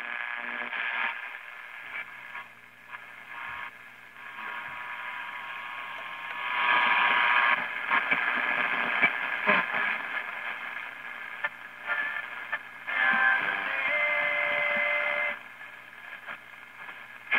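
1932 Tiffany Tone tube radio being tuned across the AM broadcast band: static and hiss with distant stations fading in and out as the dial turns. There is a steady whistle-like tone for about a second near the end. Reception is weak because the set has only a short wire for an antenna.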